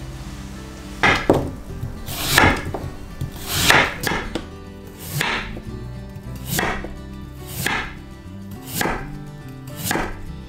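A chef's knife slicing a white radish (mu) into thick rounds on a wooden cutting board. Each stroke is a crisp crunch through the root down to the board, about one slice a second, starting about a second in.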